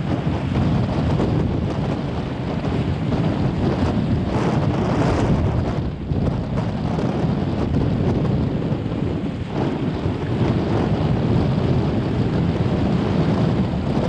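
Strong wind buffeting the microphone: a loud, dense low rumble with a few brief dips.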